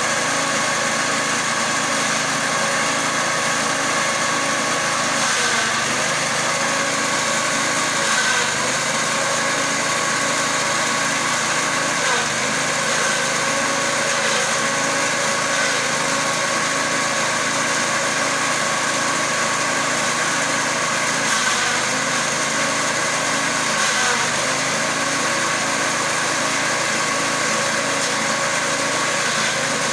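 Engine-driven grass chopper running steadily, with a few brief louder moments.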